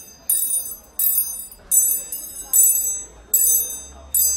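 A small high-pitched bell rung over and over, a sharp ring about every three quarters of a second, each one fading before the next.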